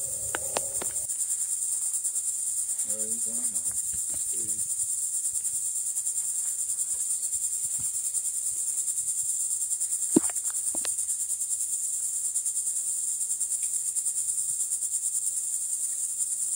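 Insects trilling in a steady, high-pitched chorus, with one sharp knock about ten seconds in.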